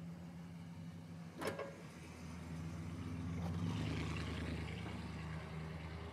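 Old car's engine running, with a car door slamming shut about one and a half seconds in. The engine then grows louder as the car pulls away, easing off toward the end.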